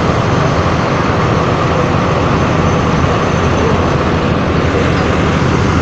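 Steady rumble of a tour bus's diesel engine idling.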